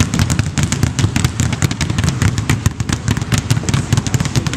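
Several players dribbling two basketballs each on a hardwood gym floor. Many bounces overlap into a rapid, continuous patter of thuds and slaps.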